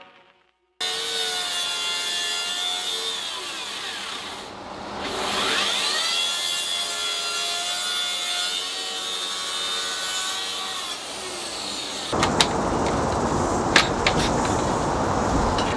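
Track saw ripping a wainscoting board lengthwise: a steady motor whine that sags and recovers in pitch partway through as the blade loads in the wood. It stops about twelve seconds in, followed by noisy handling of the board with a few sharp knocks.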